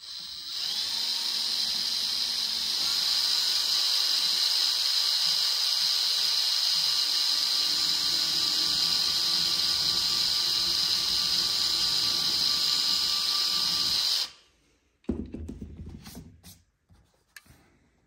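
Cordless drill boring a 1/8-inch hole through aluminium sheet, running steadily with a high whine for about fourteen seconds and then stopping suddenly. A few light knocks and handling sounds follow.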